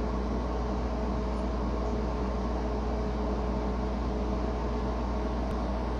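A steady mechanical hum with a low drone and a faint steady tone above it, unchanging throughout.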